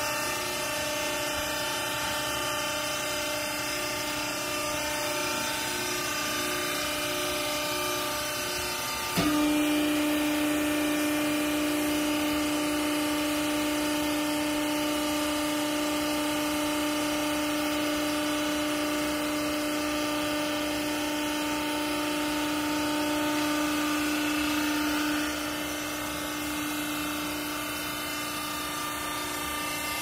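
Hydraulic pump motor of a vertical used-clothes baler running with a steady hum. About nine seconds in it suddenly gets louder with a strong steady whine, as the hydraulic cylinders drive the press plate down to compress the clothes, then it eases back near twenty-five seconds.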